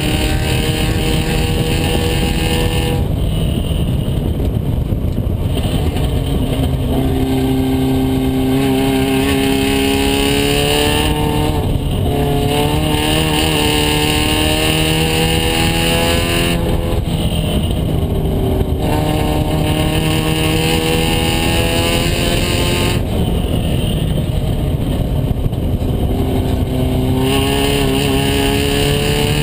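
Race car engine heard from its open cockpit on track, climbing in pitch as it accelerates and falling back to a lower, quieter note four times as the car comes off the throttle.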